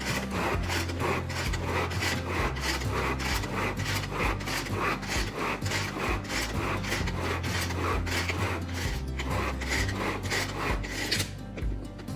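Tupperware Power Chef pull-cord chopper being pulled over and over, the cord rasping out and rewinding as its blades chop tomatoes, onion and cilantro into salsa. The strokes come about three a second and stop about a second before the end.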